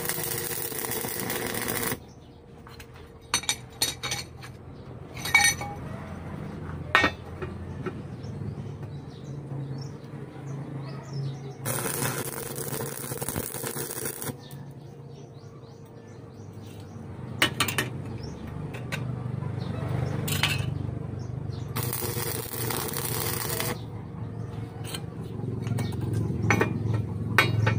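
Stick-welding arc crackling in three bursts of about two seconds each, tacking steel blades onto the pipe frame of a tractor harrow. Between the bursts come sharp metallic taps of a hammer on the steel.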